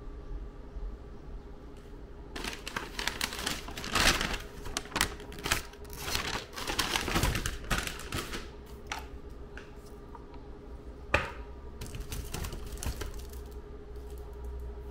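Clicks, taps and crinkly rustling as items are handled in a wicker basket (a laminated card, plastic-wrapped foam food boxes), busiest from about two to nine seconds in, with one sharp tap later on. A faint steady hum underneath.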